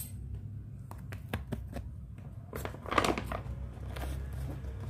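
Plastic packaging crinkling and rustling as it is handled, in a few short crackles with a busier stretch about three seconds in, over a low steady hum.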